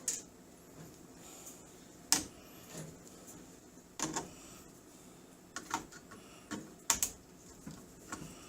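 Irregular sharp clicks and light clinks of pliers and small metal parts being handled, about ten in all, the loudest about two seconds in and again near seven seconds.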